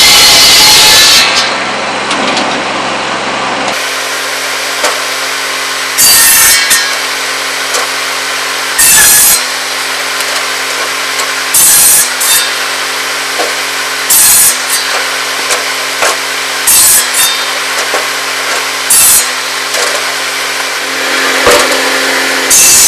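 Tractor-driven buzz saw (cordwood saw) cutting pole wood into firewood lengths. The big circular blade spins with a steady hum and bites through a stick about every two and a half seconds, with a long cut at the start and another near the end. The hum's pitch dips briefly under the load of each cut.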